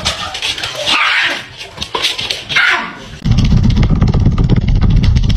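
A small dog barks in three short, harsh outbursts. About three seconds in, a loud, steady low rumble with a fast flutter takes over.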